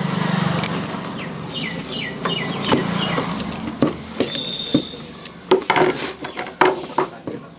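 Metal hand tools scraping and catching on a ceiling fan's stator as its burnt copper winding is pried up and pulled out, with short squeaks in the middle and a run of sharp clicks and knocks near the end.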